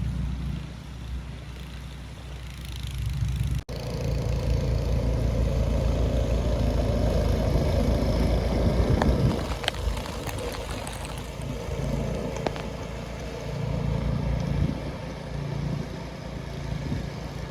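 A motor vehicle engine running steadily, with a low rumble and street noise; the sound cuts out for an instant about four seconds in.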